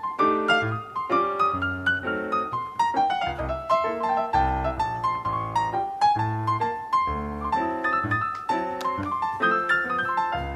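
Background piano music: a quick melody of struck notes over a repeating bass line.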